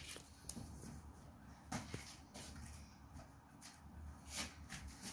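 Faint handling noises at a drawing table: a few short light knocks and scrapes, as of a pencil and paper being handled, over a low steady hum.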